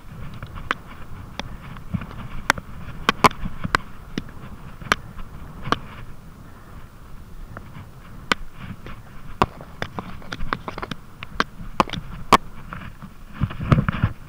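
Mountain bike rolling downhill over bumpy turf: a steady low rumble of the tyres, broken by many sharp, irregular knocks and rattles from the bike as it hits the ruts, with a louder rumbling stretch near the end.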